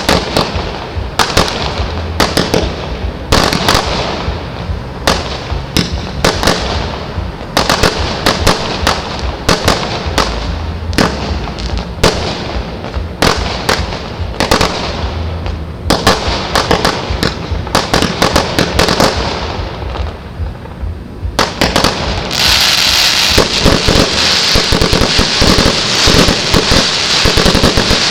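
Fireworks display: a rapid series of sharp bangs and bursts, each with a fading tail. About 22 seconds in it turns into a dense, louder crackling of many small reports.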